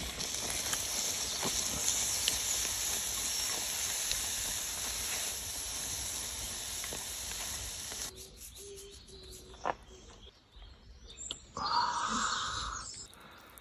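Steady hiss of food cooking over an open fire, cutting off about eight seconds in. After it comes a quieter stretch with a single click and a short burst of noise near the end.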